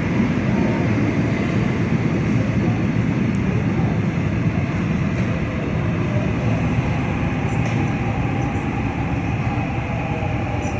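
Seoul Subway Line 6 train pulling into the station: a steady rumble of wheels on rail and running gear that eases off a little toward the end as the train slows.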